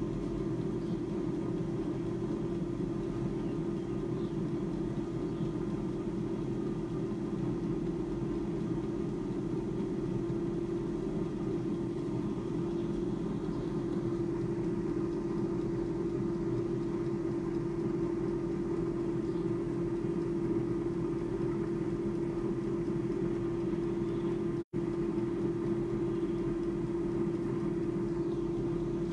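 Klarstein AeroVital 5.4-litre air fryer running mid-cook on a batch of french fries at 200 °C: a steady fan hum with one constant mid-low tone.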